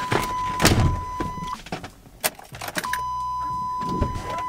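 A steady, high-pitched electronic warning tone from an old Chevy pickup's dashboard sounds inside the cab. It stops for about a second midway and then comes back. Knocks and rattles from things being handled in the cab are heard around it.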